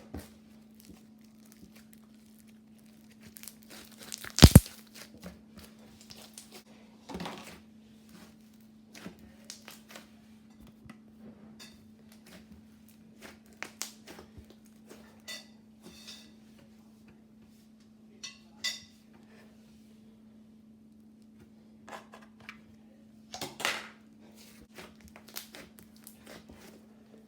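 Scattered handling noises: crinkling and rustling with light clicks and clatter of small objects, and one sharp loud knock about four and a half seconds in, over a steady low hum.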